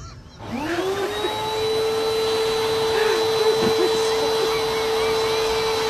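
Canister vacuum cleaner switched on with the button on its top. Its motor spins up with a rising whine about half a second in, then runs at a steady pitch.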